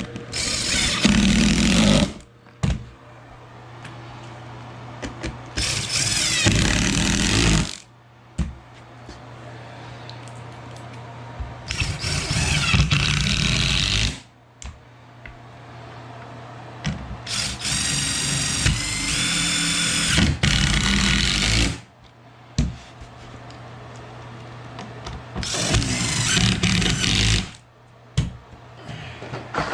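Power drill driving screws into a plywood floor patch: five runs of a couple of seconds each, the fourth longer, with a low hum between them.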